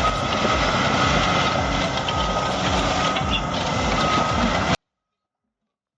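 Heavy machinery engine running, with a reversing alarm beeping on and off over it. About three-quarters of the way through, the sound cuts off abruptly into silence.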